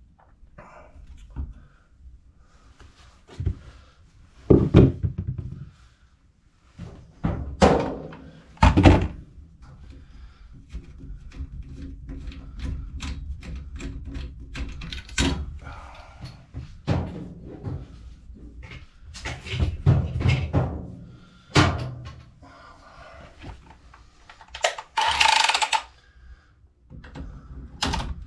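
Irregular knocks and thunks of tools and pipe being handled while boiler piping is reworked, with a brief scraping noise near the end.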